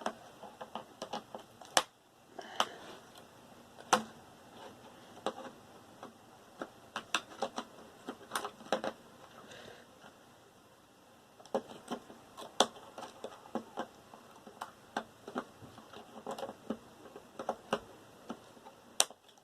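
Irregular sharp clicks and snips from cutting cables off computer parts with a hand cutter and handling the small metal and plastic pieces, with a short pause about ten seconds in.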